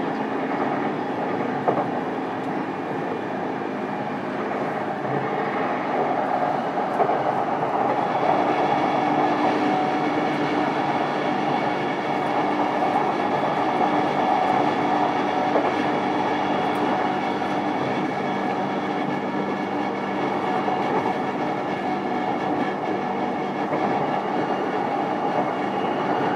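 JR East E233-series electric train running, heard from inside motor car MoHa E233-7431: a steady rumble of wheels on rail with clickety-clack from the rail joints. About eight seconds in, a set of steady high tones joins the running noise.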